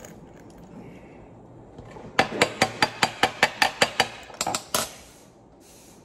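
A quick run of sharp, light metal-on-metal clicks, about five a second for two seconds and then a few more, from small hand tools worked against a pistol slide held in a steel rear-sight pusher tool.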